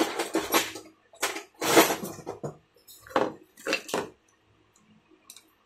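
Metal hand tools clinking and scraping on a workbench as they are picked up and set down, in about five short bursts over the first four seconds.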